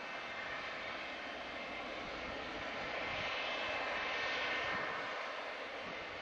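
Boeing 727's jet engines running, a steady rushing noise with a high whine. The sound swells about three seconds in, peaks, then eases off.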